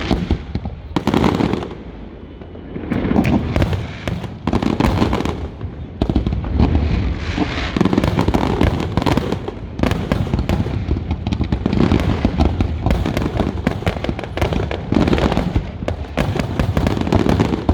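Fireworks display: aerial shells bursting with deep booms and sharp crackle, a few separate bursts at first, then a near-continuous barrage of overlapping bangs from about six seconds in.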